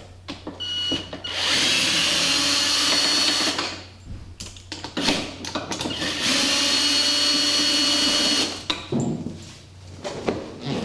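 Power drill spinning a 7/16 socket on an extension and universal joint to back out the bolts holding a golf cart's seat back. It runs in two steady whirring bursts of about two seconds each, with a high whine, and there are small clicks and handling noises between them.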